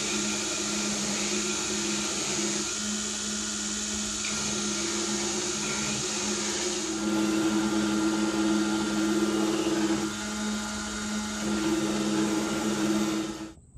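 Belt grinder running with a Damascus steel knife blade pressed to the belt: a steady motor hum under a loud grinding hiss as the blade's flats are ground clean. The grinding gets louder about halfway through, dips briefly, and cuts off suddenly at the very end.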